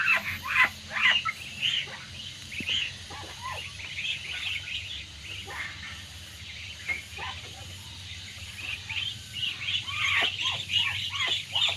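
A flock of three-week-old Muscovy ducklings peeping: many short, high chirps overlapping, busiest at the start and again toward the end, thinner in the middle.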